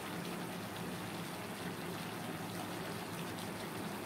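Snake gourd pieces sizzling steadily in a kadai on the gas stove.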